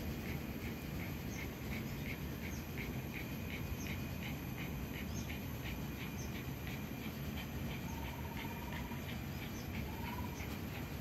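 Short high chirps repeating about twice a second, with two brief warbling trills in the second half, over a steady low background hum.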